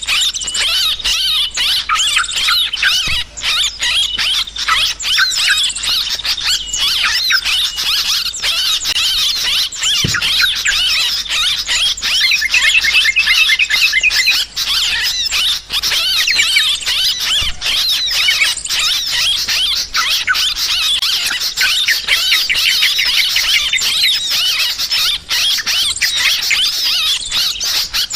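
A flock of yellow-vented bulbuls chattering noisily in an agitated chorus: many rapid, overlapping chirps and trills, dense and unbroken.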